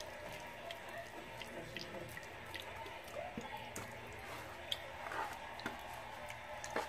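Soft wet squelching and smacking of bare hands rubbing a sticky molasses marinade into the skin of a raw whole chicken in a metal pan. It is broken by a few sharper clicks, the loudest near the end.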